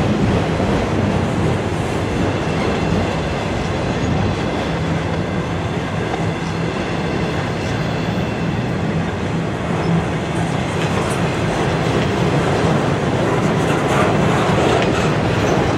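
Autorack freight cars rolling past close by: steel wheels on the rails making a steady, loud rumble with some clickety-clack.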